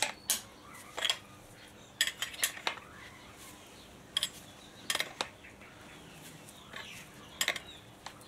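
Small metal parts from a disassembled motorcycle front fork being handled: a dozen or so sharp, irregular clinks and knocks of metal on metal.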